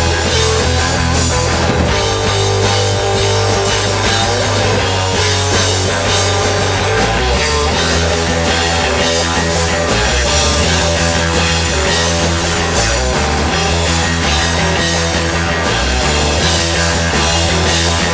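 Rock band playing live: guitar and drums over sustained low notes that change every couple of seconds.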